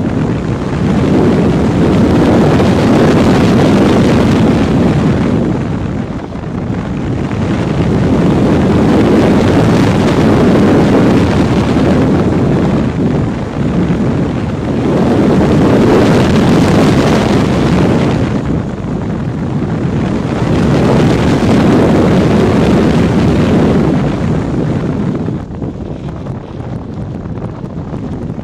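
Rushing airflow on the onboard camera of a Predator 2 F3F slope-racing glider in flight, an unpowered model with no motor. The rush swells and eases about every six seconds.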